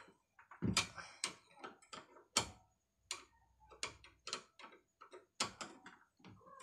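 Screwdriver tightening the mounting screw of a gas stove burner valve: about twenty sharp metal clicks at an uneven pace as the tip works in the screw head.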